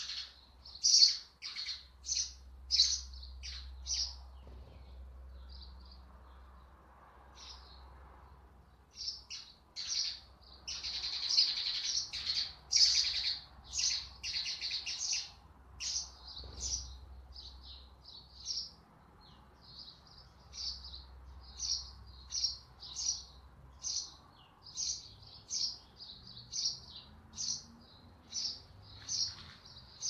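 House sparrows chirping: short, high chirps repeated about twice a second, breaking into a dense, rapid run of chirping in the middle before settling back to the steady pace.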